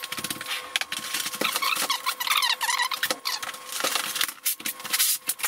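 Sped-up sound of work with a plastic membrane roll: a quick run of clicks, rustles and knocks, with high squeaky chirps from about one and a half to three seconds in. A faint steady tone lies underneath.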